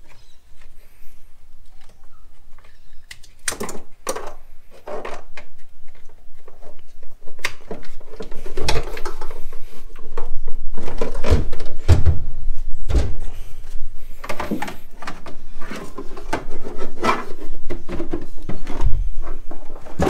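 A 12 V battery being handled and lifted out of a compartment in an aluminium boat hull: irregular knocks, clunks and scraping. The noises get louder about halfway through, with several heavier thumps.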